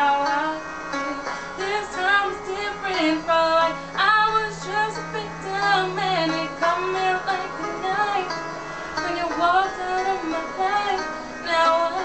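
A woman singing a slow melody with long, wavering held notes over instrumental backing music.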